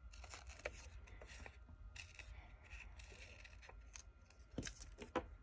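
Small scissors snipping through paper in faint, irregular short cuts, trimming around a small circle.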